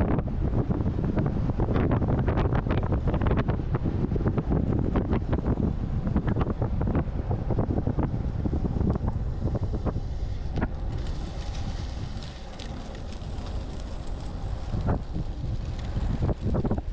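Wind buffeting the GoPro Hero8's microphone as a road bike descends at speed: a heavy, uneven rumble. It eases for a few seconds past the middle, leaving a thinner hiss, then builds again near the end.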